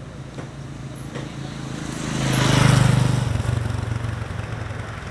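A motor vehicle passes by: its engine and road noise grow louder to a peak a little under three seconds in, then fade away.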